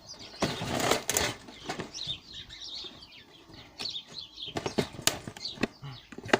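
Clicks, creaks and cracks of a toaster casing being forced apart by hand and screwdriver, with a dense stretch of scraping and cracking about a second in and another cluster of sharp snaps near five seconds in.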